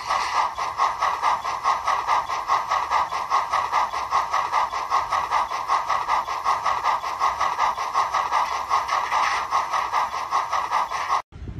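Steam-locomotive chuffing from a model steam locomotive running in place on a rolling stand, its driving wheels turning: a steady, even beat of hissing chuffs that cuts off suddenly near the end.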